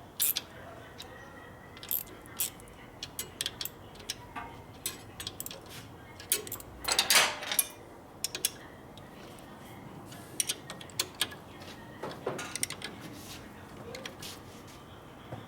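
Hand tools clinking against metal, with irregular sharp clicks as a fastener is worked and tightened.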